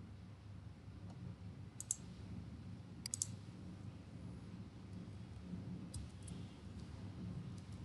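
A few sharp computer mouse and keyboard clicks: a double click about two seconds in, a quick cluster about a second later, and a few more near the end, over a faint steady low hum.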